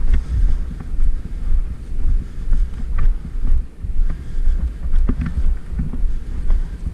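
Wind buffeting the camera microphone: a loud, gusting low rumble, with a few faint short clicks.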